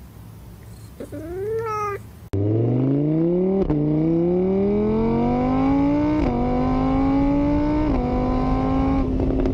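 A cat meows once, then a loud car engine suddenly starts revving up, climbing steadily in pitch and dipping three times as it shifts up through the gears.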